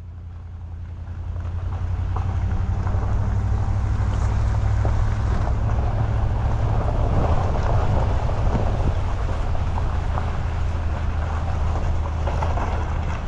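Wind buffeting the microphone, with a steady low hum beneath it.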